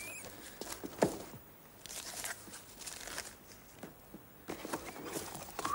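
Paper wrapping rustling and crinkling as a parcel is unwrapped and a cardboard box handled. A single thump about a second in is the loudest sound.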